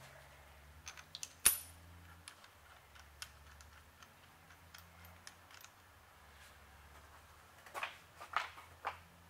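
Steel hold-down clamp, washer and nut being set on a milling machine table: scattered metallic clinks and taps, one sharp clink about one and a half seconds in and a cluster of clicks near the end, over a faint low hum.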